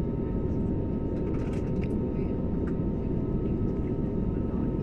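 Airbus A320neo jet engines and airflow heard inside the passenger cabin: a steady low rumble with a faint, even high hum over it.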